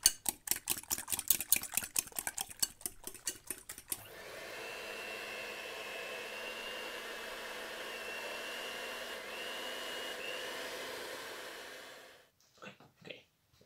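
Rapid clatter of a utensil beating against a mixing bowl for about four seconds, then an electric mixer runs steadily with a faint whine, mixing egg white, sugar and desiccated coconut into macaroon batter, and stops near the end.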